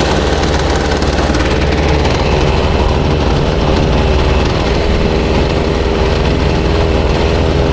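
Boat's outboard motor running steadily under way, a loud, even engine drone.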